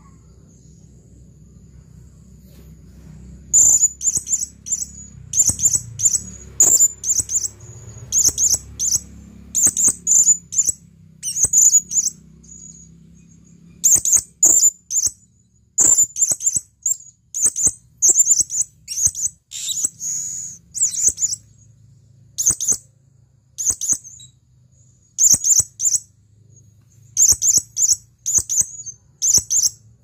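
Male blue-crowned hanging parrot (serindit) calling: rapid clusters of short, very high-pitched shrill notes, starting a few seconds in and repeating with brief pauses. This is the male's call to attract a female.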